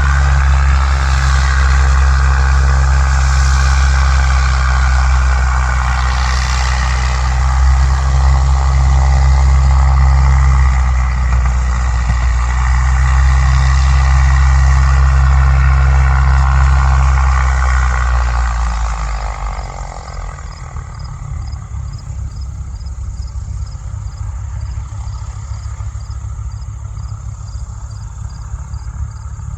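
Cirrus SR20 G6 single-engine piston propeller plane running loudly and steadily, its engine note dropping away about two-thirds of the way through. Faint insects chirp in a regular rhythm afterwards.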